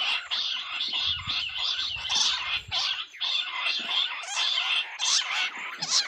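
Bush quails calling: many short, high chirps and whistles overlapping in a continuous chattering chorus, with a few louder calls standing out.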